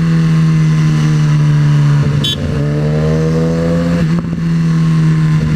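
Inline-four sport motorcycle engine running under way, heard from the rider's position. The engine note breaks briefly about two seconds in, then rises steadily in pitch as the bike accelerates, breaks again about four seconds in, and settles to a steady note. A short high chirp sounds just after the first break.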